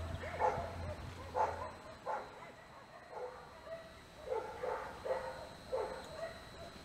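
A dog barking over and over, roughly one to two barks a second. A low steady hum underneath fades out a little under two seconds in.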